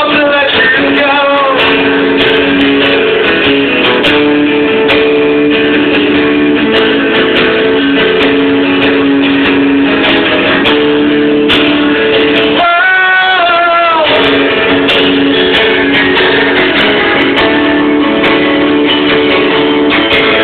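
Live guitar music: the instrumental passage between verses of a rock ballad, with strummed chords and sustained notes. One wavering held note comes about two-thirds of the way through.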